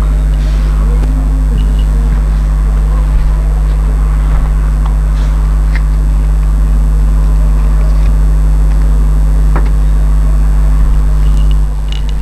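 A loud, steady low hum, with faint scattered clicks and distant voices over it; the hum drops a little near the end.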